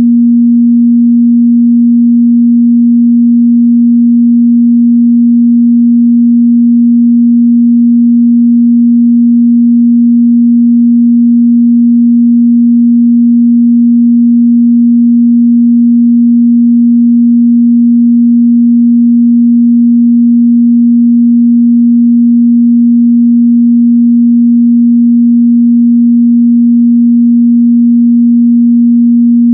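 A steady, unbroken 237 Hz sine-wave test tone: a single pure mid-bass hum at constant loudness.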